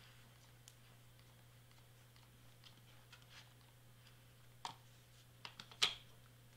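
Light clicks and taps of cardstock and a hot glue gun handled on a cutting mat, a few scattered and then a small cluster with the sharpest about six seconds in, over a faint steady low hum.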